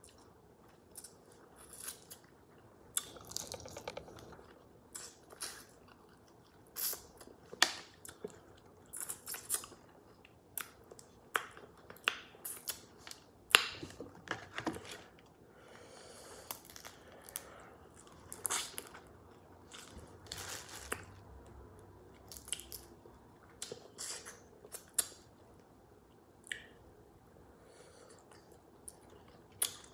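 Close-miked eating of a seafood boil by hand: chewing and crunching, with many irregular clicks and crackles as crab and crawfish shells are broken and the meat is bitten. One sharp crack stands out about halfway through.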